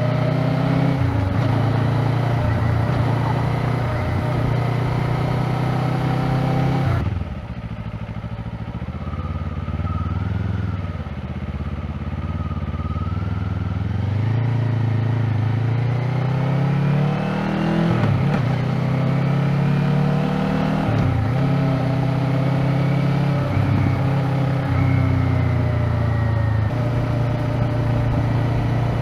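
Kawasaki Z500 parallel-twin engine with its stock exhaust, heard while riding. The engine note climbs in pitch and dips at each gear change. It drops off abruptly about seven seconds in, then pulls up through the gears again.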